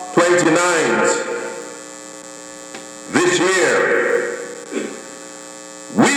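Steady electrical hum, broken three times, about three seconds apart, by a loud pitched swoop that falls in pitch.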